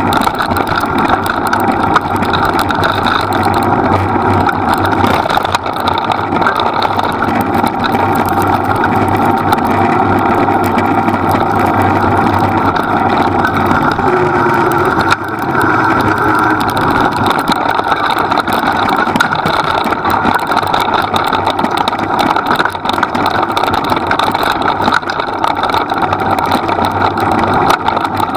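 A small vehicle engine running steadily at an even pace, with no speech over it.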